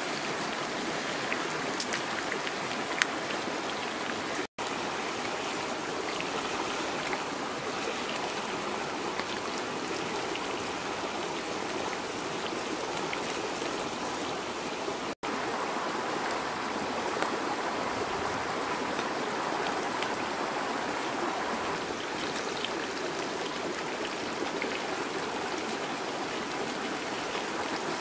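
Steady rushing of a river running close by, with a few sharp crackles in the first few seconds. The sound cuts out for an instant twice.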